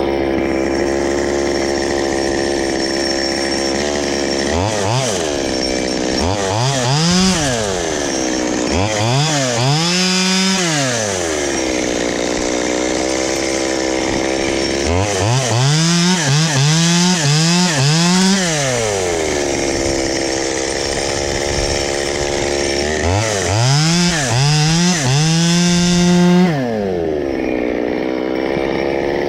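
Small two-stroke chainsaw idling and revved up and down several times: a couple of revs, then a quick string of blips, then one held high, each dropping back to a steady idle.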